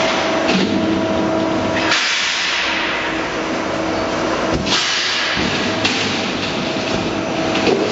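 Ursviken 760 hydraulic guillotine shear running: a steady hum from its hydraulic pump with a hiss over it. The sound shifts about two seconds in, and there is a sharp knock about four and a half seconds in.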